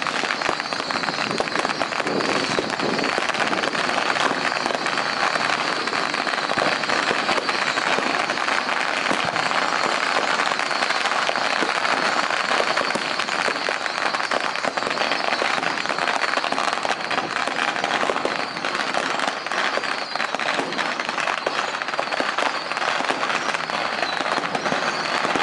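Strings of firecrackers going off without a break: a dense, continuous crackle of rapid pops.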